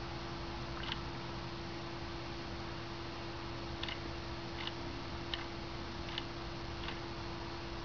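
Quartz wall clock's second-hand movement, driven by an ATtiny13a microcontroller, ticking at deliberately irregular intervals: one tick about a second in, a pause of about three seconds, then five ticks in quicker succession. A steady hum lies under the ticks.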